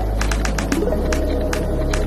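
Background music with sustained low tones and a regular percussive beat.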